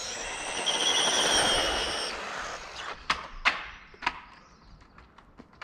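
1/18-scale RC monster truck at full throttle: its electric motor's high whine climbs and then holds over tyre noise on rough tarmac, cutting off about two seconds in. A few sharp knocks follow around three to four seconds in.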